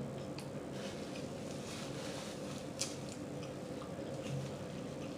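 Faint mouth sounds of someone chewing food, with small wet smacks and clicks and one sharper click a little under three seconds in, over a steady low hum.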